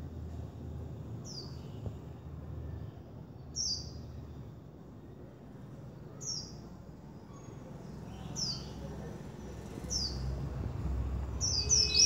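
Caged white-eye giving short, high, downward-sweeping chirps about every two seconds, then a quick run of several near the end, over a low steady background rumble.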